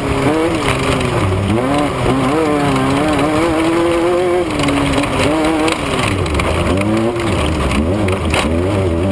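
Off-road race vehicle's engine running hard, its pitch rising and falling again and again with the throttle.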